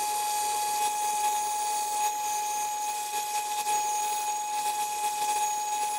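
Milwaukee cordless angle grinder with a flap disc grinding down a MIG weld on the outside corner of steel square tubing, running steadily with a steady whine over the scraping of the disc on the steel.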